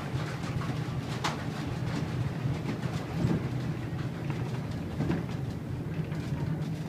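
Horse-drawn tram car rolling along its rails, heard from inside the wooden car: a steady low rumble of the wheels on the track, with a few sharp clanks and knocks, one about a second in and another near five seconds.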